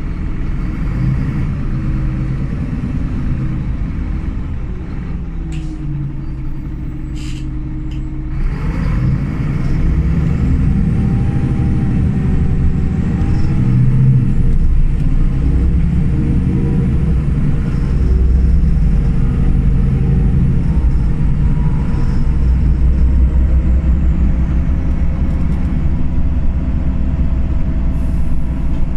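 Euro 3 diesel engine and Voith automatic gearbox of a Solaris Urbino 18 III articulated city bus, heard from aboard while driving. It runs quieter for a few seconds with a few sharp clicks, then pulls harder from about eight seconds in and keeps running steadily under load.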